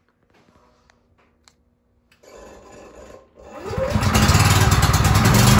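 Champion 4250-watt open-frame inverter generator's gas engine being started cold on its electric starter. After a few faint clicks it cranks briefly about two seconds in, then catches about three and a half seconds in, revs up and runs loudly and steadily.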